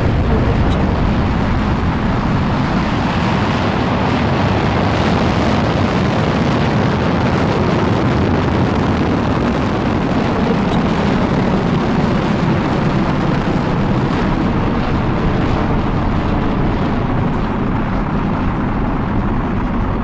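Sci-fi sound effect of a burning star: a loud, steady rumble of dense noise with no pitch, heavy in the low end, easing slightly near the end.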